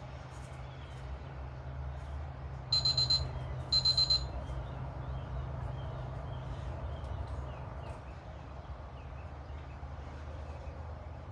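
Workout interval timer beeping: two short bursts of rapid high beeps about a second apart, marking a change between Tabata work and rest intervals. A steady low rumble runs underneath.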